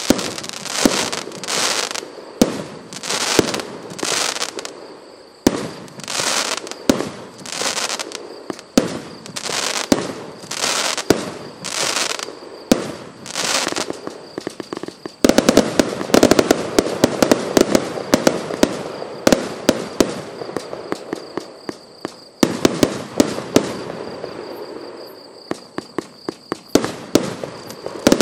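Boneshaker multi-shot firework cake firing a barrage: launches and shells bursting with a sharp bang and hiss, one or two a second. About halfway through it turns into dense, rapid crackling, and this comes again near the end.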